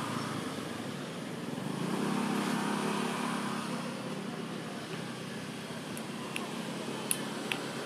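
Steady outdoor background hum of a motor vehicle, rising and fading as it passes about two to three seconds in. A few short, light clicks near the end.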